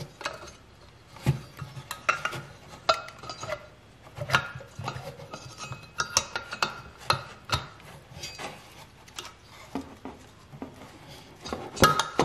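Metal parts of a torn-down Honda GX31 small engine clinking and knocking together as they are handled and worked apart, with irregular sharp clicks and taps and a louder cluster of knocks near the end.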